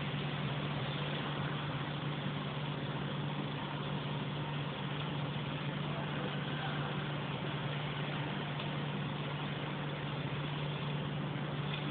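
Welding machine running steadily during welding: a constant low hum with an even hiss over it.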